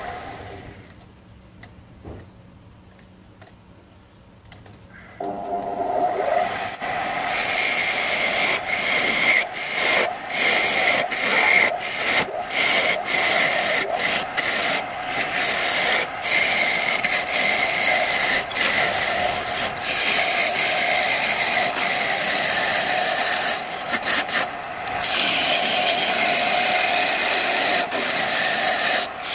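Wood lathe quiet for the first few seconds, then its motor comes up about five seconds in and a gouge cuts into the spinning wooden bowl blank: a continuous rough scraping of wood shavings being peeled off, over the motor's steady hum, broken by many brief gaps as the tool lifts off the wood.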